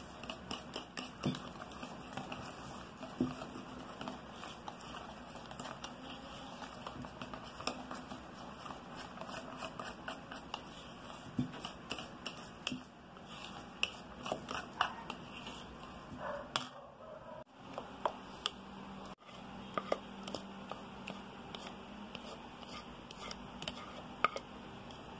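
A hand utensil stirring thick chocolate cake batter in a mixing bowl, clicking and scraping against the bowl's sides in quick, irregular taps.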